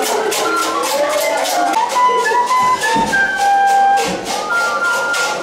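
Soprano recorder playing a simple tune of held notes, with a rhythmic percussion beat of about four strokes a second beneath it.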